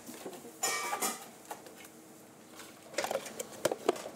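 Clear plastic lids handled and pressed onto disposable takeaway bowls: a crinkling rustle about half a second in, then a run of sharp clicks near the end.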